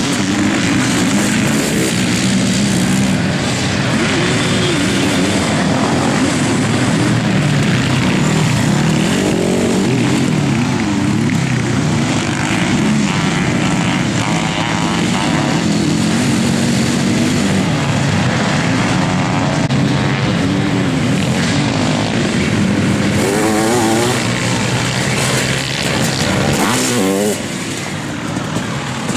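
Sidecar motocross outfits racing, their motorcycle engines revving hard on the dirt track. The engine pitch rises and falls again and again as they accelerate and pass.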